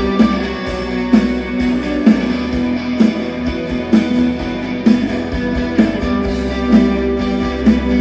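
Live rock band playing an instrumental passage through a stage PA: strummed guitar chords over a sustained bass, with a drum hit about once a second.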